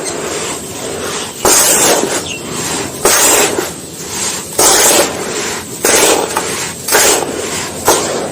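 Small dry, sandy, grainy cups being crushed and crumbled, a sharp crunch roughly every second or so with gritty crumbling and sifting between the crunches.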